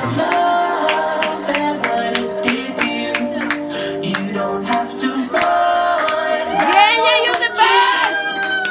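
Music with a steady beat, and a singing voice sliding up and down near the end.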